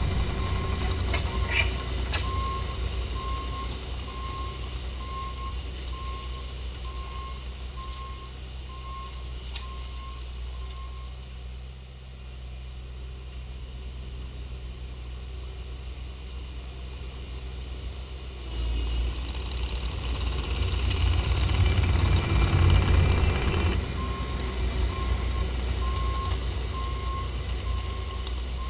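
Bobcat T870 compact track loader's diesel engine running, with its reversing alarm giving steady repeated beeps as it backs up. The beeping stops partway through while the engine gets louder under load for several seconds. The beeping starts again near the end.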